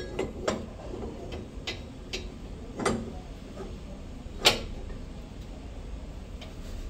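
Metal parts of a grinder-style juice mixer head clicking and clinking as the perforated cutting plate is fitted over the cross blade and turned to seat its notches in the housing. Scattered light clicks, with two louder knocks about three and four and a half seconds in.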